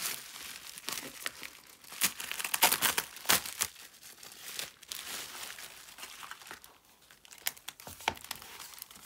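Plastic bubble-wrap mailer crinkling and rustling as it is handled and pulled open by hand, with a run of louder crackles about two to three seconds in, then lighter, sparser rustling.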